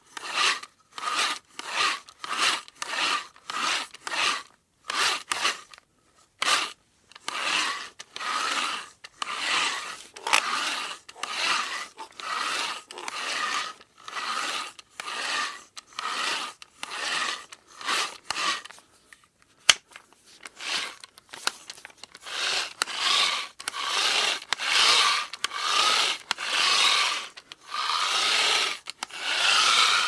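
Manual hand drill boring, in repeated rasping strokes: short ones about two a second at first, then longer strokes of around half a second to a second. About two-thirds of the way through there is a short pause with a single click.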